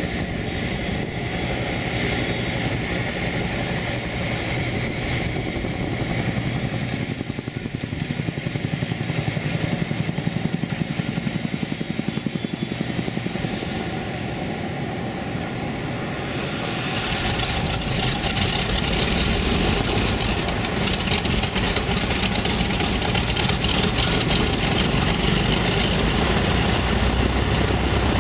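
Lockheed P-2V Neptune airtanker's Wright R-3350 radial piston engines running, a steady fast-pulsing propeller drone. About two-thirds of the way through the sound grows louder and fuller.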